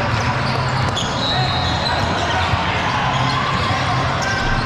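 Basketball game sounds in a gym: a ball bouncing on the court amid a steady mix of players' and spectators' voices, with a few short high squeaks.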